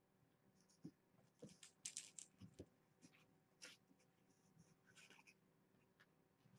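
Near silence broken by faint, scattered scratching, rustling and small clicks from kittens moving about.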